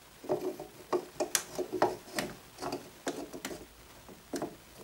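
Metal lever handle being fitted onto a newly mortised lock in a wooden window sash and worked by hand, giving an irregular run of small metallic clicks and knocks from the handle and latch.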